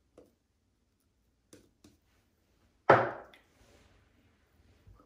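Shaving gear handled on a hard surface: a few light clicks, then one sharp knock about three seconds in that dies away within half a second.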